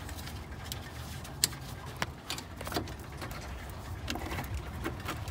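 A few sharp, scattered metal clicks and taps from a hand tool working the loosened upper starter bolt out of the engine block, over a low steady background rumble.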